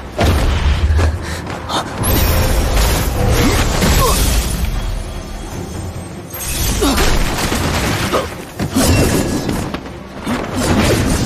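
Dramatic background music over fight sound effects: heavy booms and shattering crashes, as of ice or glass breaking, with a dip in intensity at about six seconds before the hits build again.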